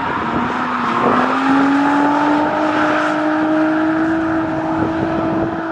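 Nissan G35's V6 engine running hard at high, steady revs, its pitch stepping up about a second in and then holding, over a constant rushing noise.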